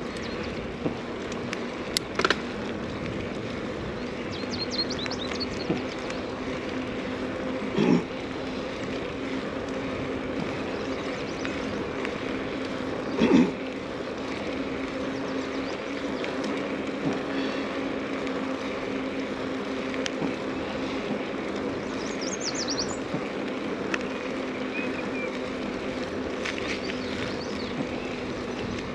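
Mountain bike riding: steady rolling noise with a low hum from the tyres and drivetrain, broken by a few sharp knocks and two louder thumps. Birds chirp briefly twice.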